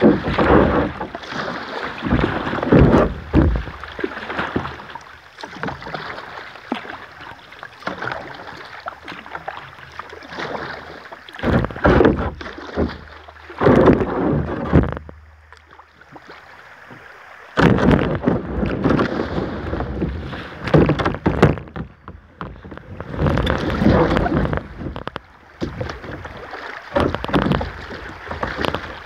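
Kayak paddle strokes splashing in the water in irregular bursts every second or two, with a few seconds' pause in the strokes about halfway through.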